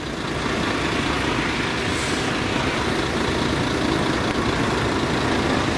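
Steady, even noise of a truck engine running close by, mixed with road noise.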